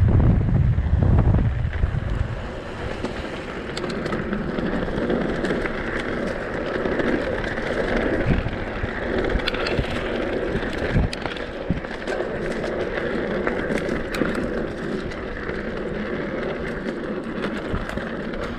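Mountain bike rolling over grass and a leaf-strewn dirt trail: steady tyre noise with scattered clicks, and wind buffeting the microphone for the first two seconds.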